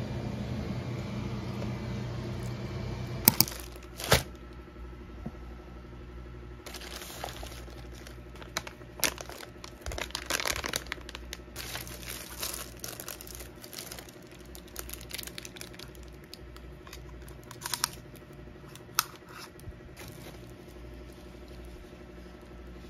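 Packaging being unwrapped by hand: wrapping paper and plastic wrap crinkling and rustling, with scattered sharp crackles and clicks. A steady low hum fills the first three seconds, ending with two sharp clicks.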